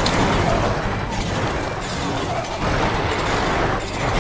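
Cartoon bulldozer sound effect: a dense low rumble of engine and crawler tracks straining, the machine stuck fast between two tree trunks.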